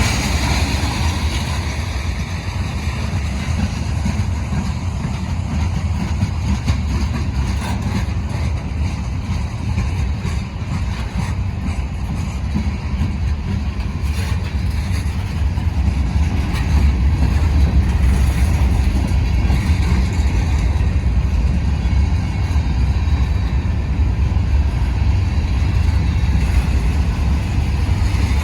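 Long BNSF manifest freight train rolling past with a steady low rumble, a little louder in the second half.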